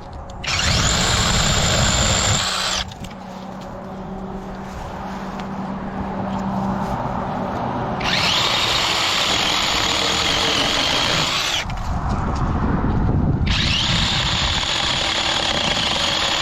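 Seesii battery chainsaw cutting branches, its electric motor and chain running in three bursts of a high whine, each a few seconds long, with lower rough noise between the bursts.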